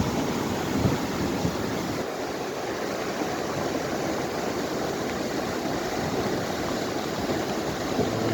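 The Kunhar River in flood: a swollen mountain river rushing as a steady, even wash of water noise.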